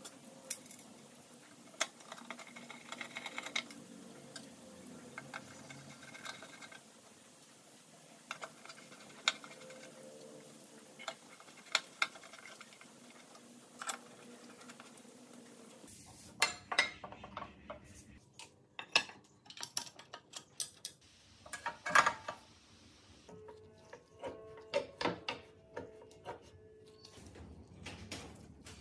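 Screwdriver and steel parts of a book-binding machine clicking and clinking as screws are driven into its punch-pin rail during reassembly. The clicks are sparse at first and become more frequent and louder about halfway through.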